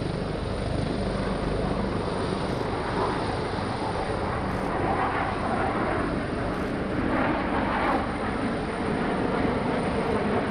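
EA-6B Prowler's twin J52 turbojet engines at takeoff power as the jet rolls down the runway, heard from a distance as a steady jet engine noise that swells about five seconds in and again around seven to eight seconds in.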